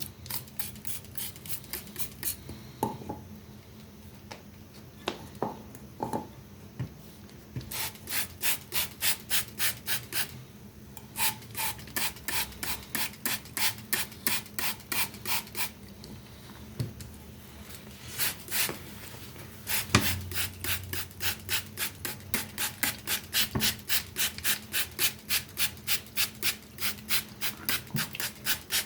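Rapid back-and-forth scraping strokes from hand scrubbing or filing on an old object being restored, about three to four strokes a second, in several runs broken by short pauses, with a few single knocks in between.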